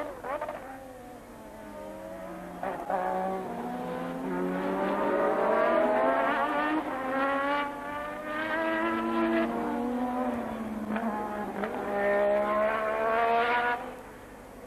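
Formula 1 car engine, a McLaren-Honda's 1.5-litre turbocharged V6, running hard as the car passes, its pitch rising several times with drops between at the gear changes, fading near the end.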